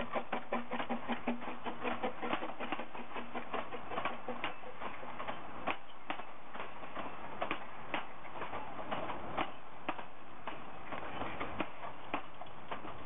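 Narrow-gauge steam train moving off, wheels and running gear clicking: a rapid, even run of about five clicks a second at first, thinning to scattered single clicks and knocks as the carriages roll by.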